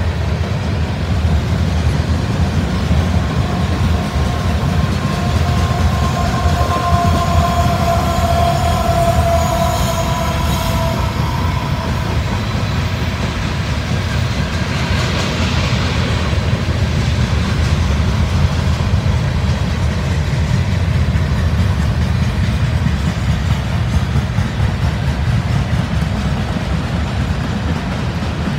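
CSX freight train rolling past: a steady low rumble of steel wheels on rail as covered hoppers and steel coil cars go by, with a mid-train distributed-power locomotive among them. A high-pitched wheel squeal rings out for several seconds, from about three to eleven seconds in.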